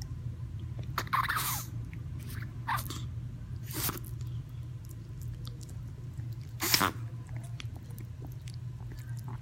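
Chihuahua sneezing repeatedly in a fit: about four sharp sneezes at uneven gaps, the loudest near seven seconds in.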